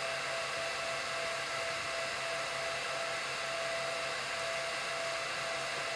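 Cooling fan of a Supermicro SuperServer SYS-E300-9D running at high speed: a steady rush of air with a constant whine. The owner takes the fan running high at first power-on for normal.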